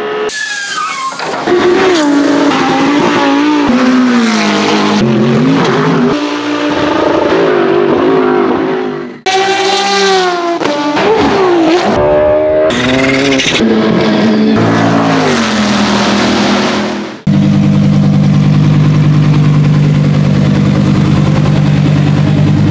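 GT3 race car engines at full throttle on track, revving up and dropping back through gear changes, in a run of short clips that cut off abruptly. About three-quarters of the way through, the sound changes to an Audi R8 LMS evo's naturally aspirated V10 idling steadily.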